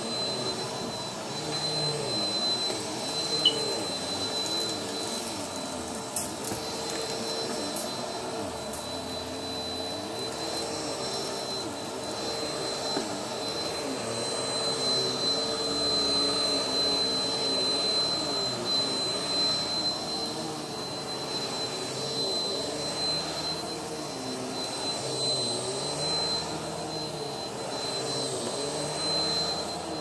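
Bagless upright vacuum cleaner running on carpet: a steady motor hum with a high thin whine, its lower tone wavering as the vacuum is pushed back and forth. A few faint clicks in the first third.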